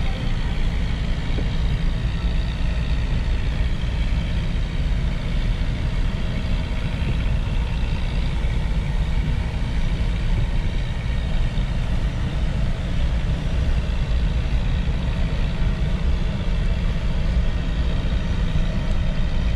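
Shay geared steam locomotive SL-31 running slowly as it approaches, a steady low rumble.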